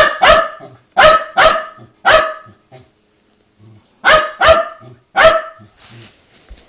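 Small dog barking sharply and repeatedly in a tantrum: three or four barks, a pause of about two seconds, then three more.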